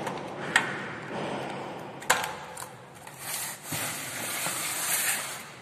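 Handling noise while assembling a ceiling fan: a few sharp clicks and knocks of a metal screwdriver and fan parts, two of them loud, then a rustling in the second half.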